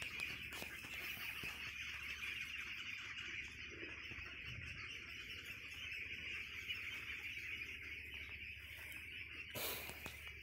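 Faint, steady high-pitched chirring chorus of birds and insects from the tree canopy, with a brief rustle of phone handling near the end.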